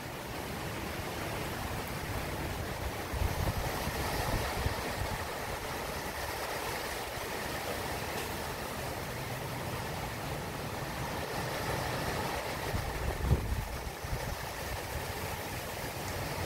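Steady hiss of rain in the tree canopy. Gusts of wind buffet the microphone, strongest about four seconds in and again near the end.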